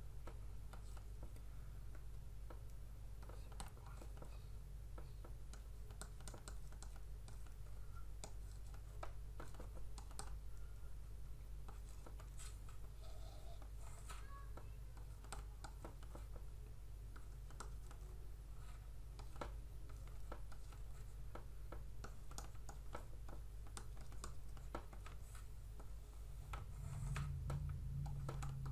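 Faint, irregular small clicks, taps and scratches of a stylus writing numbers on a tablet, over a steady low electrical hum that gets louder near the end.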